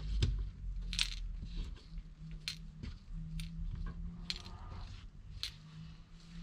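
Small brass carburettor jets and screws dropped one at a time into a small metal tea-bag strainer. They clink about six times at uneven intervals.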